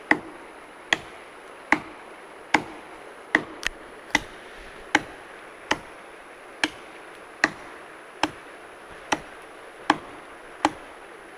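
Axe chopping into a large tree trunk: about fourteen sharp, evenly paced strokes, a little more than one a second, with the trunk nearly chopped through.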